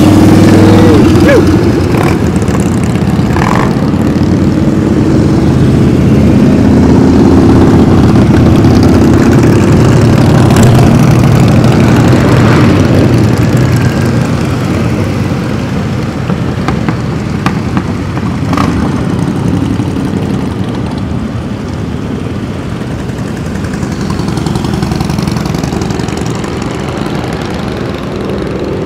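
Motorcycle engines running as bikes pass along the street. The sound is loudest through about the first half and eases off after that.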